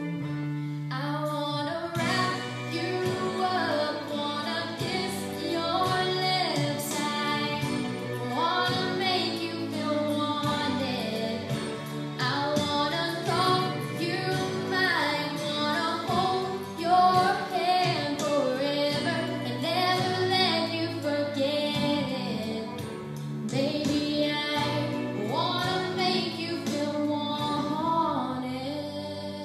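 A female voice singing a song over instrumental accompaniment.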